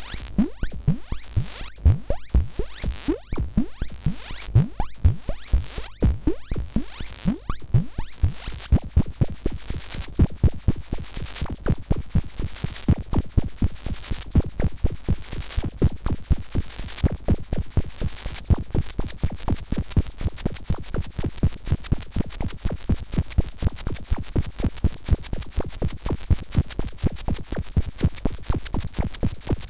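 Serge modular synthesizer patch with self-triggering transient generators firing envelopes into oscillators, filters and VCAs. It plays a pulsing, random-sounding sequence of pitch-swept electronic blips, each with a bright noisy click, about one to two a second. About two-thirds of the way through, it changes to a much faster, dense stream of pulses.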